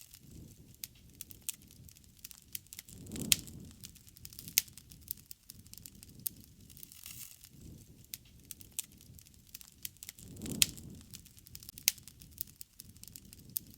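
Wood fire crackling, with frequent sharp pops and snaps over a low rush of burning flames that swells twice, about three seconds in and again near ten seconds.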